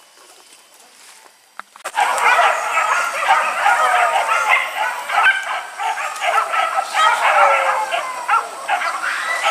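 A pack of hunting dogs yelping and barking together in a dense, continuous chorus of overlapping high calls, starting suddenly about two seconds in.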